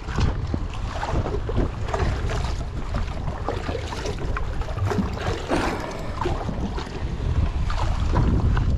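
Wind buffeting the microphone, a steady low rumble, with scattered small knocks and rustles from handling fishing gear and fish over the water.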